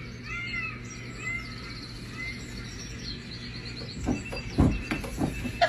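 Birdsong played from a television's garden footage: a repeated arching chirp, then quicker, higher chirps. About four seconds in, a run of soft thumps and taps begins.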